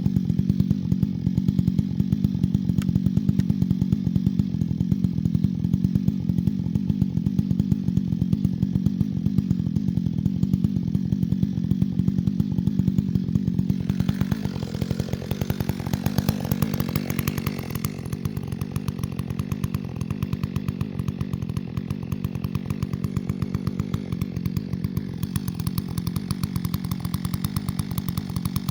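Chainsaw engine running steadily at speed. About halfway through the sound turns harsher for a few seconds, then carries on a little quieter.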